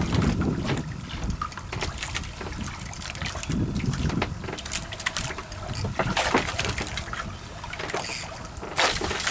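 Sea water lapping and slapping against a small fishing boat, with wind buffeting the microphone as an uneven low rumble and scattered small knocks and clicks.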